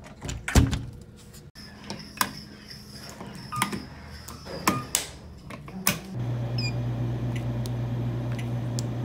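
A string of sharp clicks and knocks as a blue 3D-printed plastic door-opener tool works a push-door lever handle, then flips light switches and presses elevator buttons. From about six seconds in a vending machine hums steadily, with a short beep as a keypad key is pressed.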